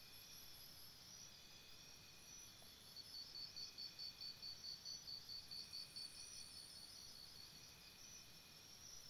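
Faint crickets chirping in rapid, even pulses of about four a second, becoming clearer about three seconds in.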